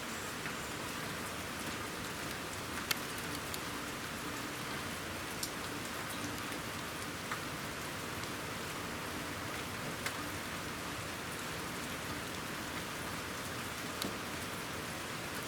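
Steady light rain falling, with a few sharp single taps scattered through it, the loudest about three seconds in.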